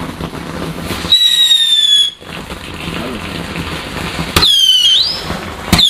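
Whistling fireworks going off: three high whistles. The first comes about a second in, lasts about a second and falls slightly in pitch. The next two each start with a sharp crack and dip, then rise in pitch.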